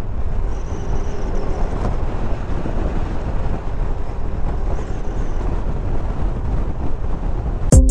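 Steady noise of a motorcycle on the move: engine drone mixed with wind rushing over the microphone.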